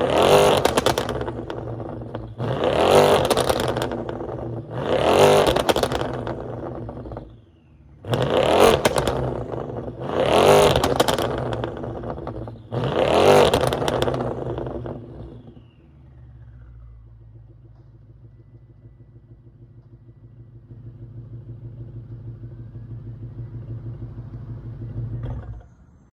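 BMW 650i's twin-turbo N63 V8, with catless downpipes and a muffler delete, revved six times in quick succession, each rev rising sharply and falling back. It then settles into a steady idle that stops abruptly near the end.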